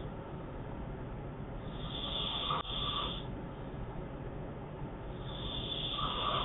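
A sleeping man snoring, two snores about four seconds apart.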